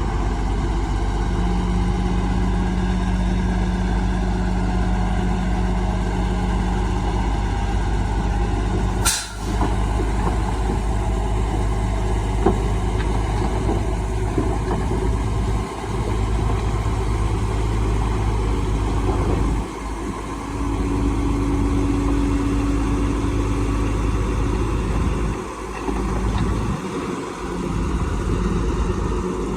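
Heavy diesel earthmoving machinery running steadily at a constant pitch. About nine seconds in there is one short, sharp noise, and the level dips briefly a few times later on.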